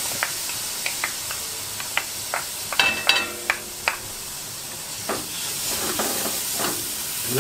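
Onions, garlic and spices frying in olive oil in a stainless-steel stockpot, sizzling steadily after saffron water is poured in. A wooden spoon scrapes and taps against a bowl and stirs the pot, with a few sharp taps about three seconds in, one ringing briefly.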